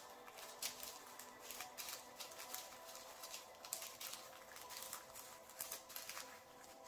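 Small plastic bag of resin diamond-painting drills crinkling, with many small irregular clicks and ticks as a thin stick pokes and stirs the drills, which are clinging inside from static.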